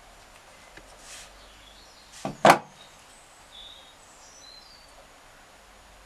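Multitool awl being worked through a plastic bottle cap to pierce it: faint scraping, then two short sharp sounds about two and a half seconds in, the second the louder, as the point pushes through the plastic.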